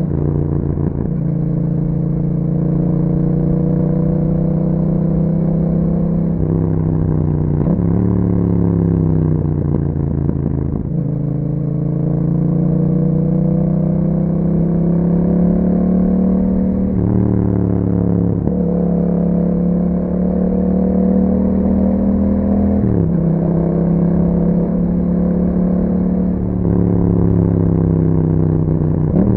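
A 2021 Yamaha MT-07's 689 cc parallel-twin engine running under way through an Akrapovic exhaust with dB killers fitted. The note glides up and down as the bike is ridden, jumping abruptly in pitch several times.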